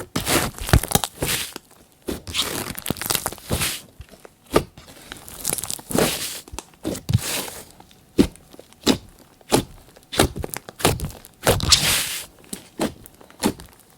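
Hands squishing and working glossy slime, making irregular sticky clicks, pops and crackles.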